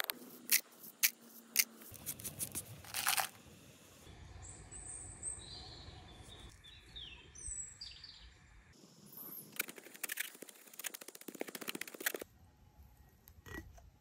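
Sharp clicks and crunches of lump charcoal being crushed with a stone. Then birds chirping and trilling over a low outdoor rumble, followed by a burst of dry rustling and crackling as plant material is handled.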